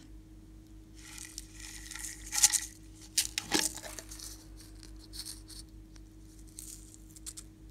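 Slime and clay being handled and mixed in a glass dish: crackling with a few sharp clicks, the loudest a little past two seconds in and at about three and a half seconds, then smaller bursts of crackling.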